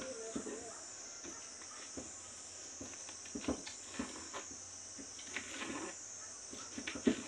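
Knife cutting through peeled pineapple and knocking against a plastic container, in scattered short clicks and knocks, with a few stronger taps about three and a half seconds in and near the end. A steady high-pitched hiss runs underneath.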